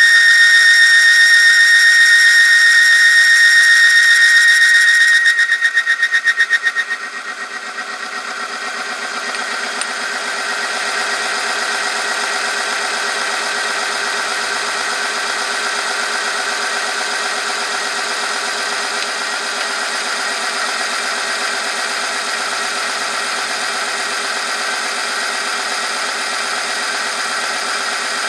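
Oil film strength testing machine running under load: the test sample rubbing against the rotating ring in the oil bath. It gives a loud, steady, high squeal for about the first six seconds, which then breaks up into a rougher, lower grinding whine over the drive motor's hum.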